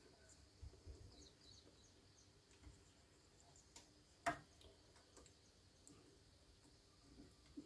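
Near silence, broken by a few faint small clicks from a flat ribbon cable being worked into a circuit-board connector, with one sharper click about four seconds in. Faint bird chirps sound in the background.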